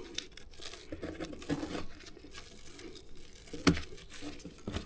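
Handling noise as a clip-on brush cleaner is fitted around a motorcycle chain: scattered rustling and small clicks, with one sharp click a little before the end.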